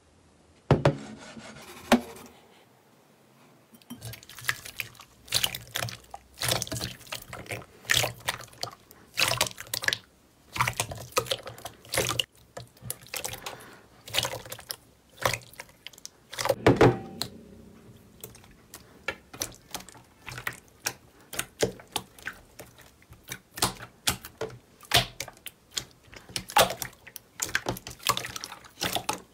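Glossy slime being pressed and kneaded by hand, making wet, sticky clicks and pops. A couple of single pops come first, then from about four seconds in a dense, irregular run of them.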